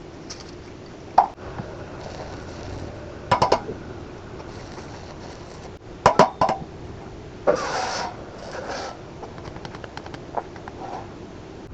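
Scattered sharp knocks and clatters, a few single hits and short runs of them, with a longer rattle about eight seconds in, over a steady background hiss.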